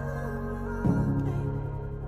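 Soft background music: calm sustained instrumental notes, with a new chord coming in a little under a second in.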